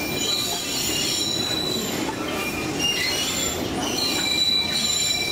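Narrow-gauge train's steel wheels squealing against the rails as it rounds a bend. Thin high-pitched squeals come and go over the steady rumble of the cars rolling along.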